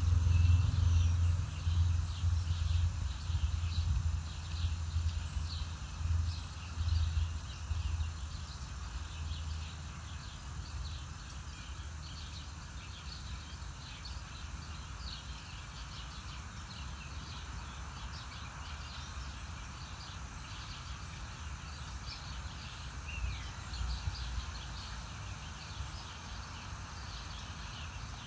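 Outdoor ambience: many short, high chirps from small birds throughout, over a steady hiss. Wind rumbles on the microphone for the first several seconds, then eases off.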